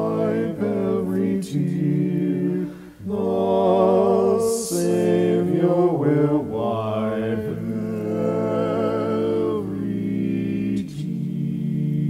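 Four-part male a cappella hymn singing in a minor key, one man's voice multitracked into harmony, moving through slow, held chords with vibrato. The chords break briefly about three seconds in and change near the end.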